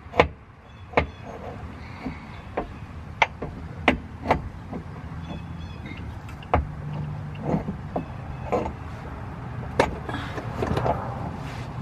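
Irregular metal clinks and knocks as a driveshaft is twisted and walked into the transmission. The driveshaft is a snug fit.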